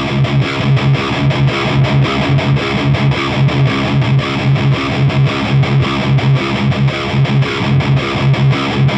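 Distorted electric guitar through an Orange Rockerverb 100 MKIII tube amp head playing a metal riff of fast, even low chugs, about four a second, while the amp's middle control is turned up.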